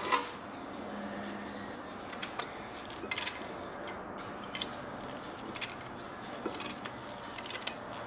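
Ratcheting brake caliper piston spreader tool being worked to press the caliper pistons back in: scattered sharp metallic clicks, roughly one a second, some in quick pairs, over a faint steady hiss.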